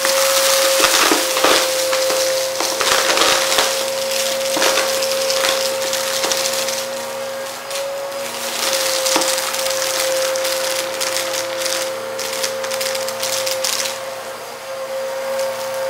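Bissell upright vacuum cleaner running with a steady motor whine. Its head is pushed over carpet, sucking up crunchy debris and lint with a dense crackle and rattle of bits going up the intake.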